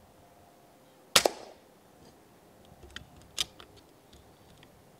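Air rifle firing once about a second in: a sharp double crack. A few lighter clicks follow around three seconds in.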